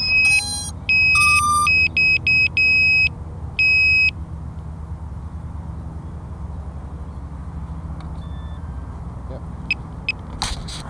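Walkera F210 quadcopter sounding a run of high electronic beeps, some long and some short, over the first four seconds while it lies tipped over with its motors killed. After the beeps comes a steady low rumble with a few faint clicks, and a brief burst of handling noise near the end.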